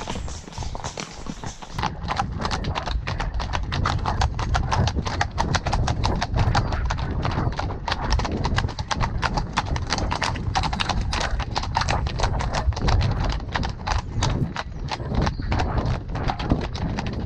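A ridden horse's hooves beating on a dirt-and-gravel track in a quick, steady rhythm, which picks up about two seconds in, over a low rumble.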